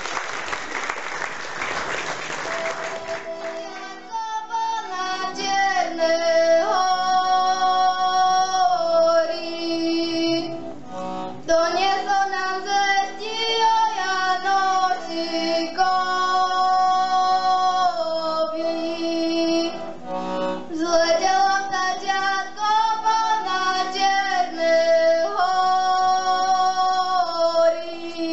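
Applause dies away over the first few seconds, then several heligónkas (Slovak diatonic button accordions) start a lively folk tune, with female voices singing along in sustained held notes.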